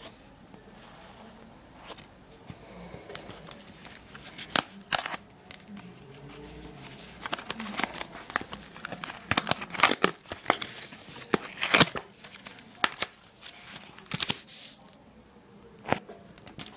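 Screen-protector retail packaging being handled and opened by hand: irregular crinkling and sharp clicks, busiest in the middle, with a single sharp click near the end.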